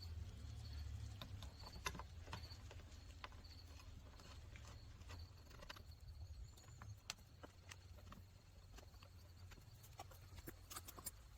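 Faint, scattered clicks and knocks of car parts being handled and fitted back into place, at irregular intervals with a cluster near the end, over a low rumble.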